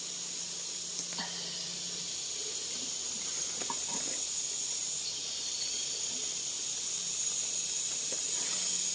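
Steady high-pitched hiss of forest insects droning in the canopy, growing slightly louder near the end, with a few soft rustles of footsteps through undergrowth.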